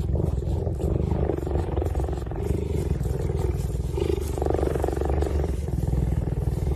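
Cheetah purring steadily while its head is held and stroked: a deep, continuous rumble with a fast pulsing grain.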